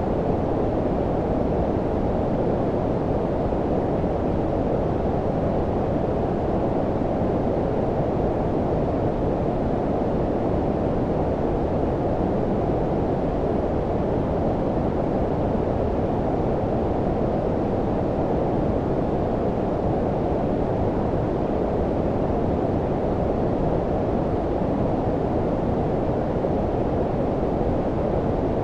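Steady, unchanging low-frequency noise, strongest below about 1 kHz and thin above 2 kHz: filtered white noise with a deep, warm, brown-noise character, generated for sleep masking.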